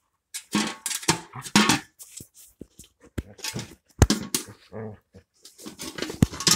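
A dog scuffling and growling in short irregular bursts inside a wire-mesh cage, with a few sharp knocks of something hitting the cage or its metal bowl.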